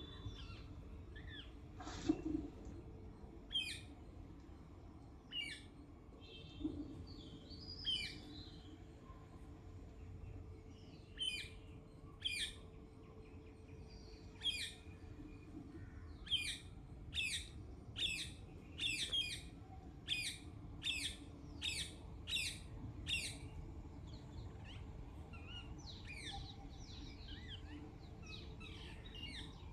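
Parrot calling with short, sharp, high chirps: a few scattered at first, then a quick regular run of about ten, one every two-thirds of a second, then softer scattered calls toward the end. A steady low hum lies underneath.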